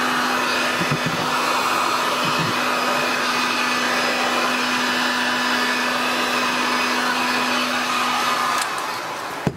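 Electric heat gun running steadily, its fan blowing hot air to shrink heat-shrink tubing over a battery pack. It cuts off about a second before the end.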